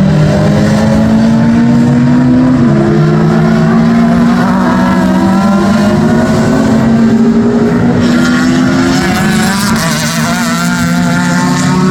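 Historic DTM touring car engines at racing revs, more than one car at once. The pitch climbs steadily under acceleration and drops sharply at upshifts, about two and a half seconds in and again about nine seconds in.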